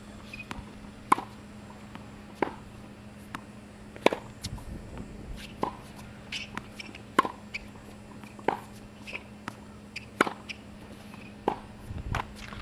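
Tennis balls being hit back and forth in a rally: sharp racket strikes and bounces about every second to second and a half, with short high squeaks between them and a steady low hum underneath.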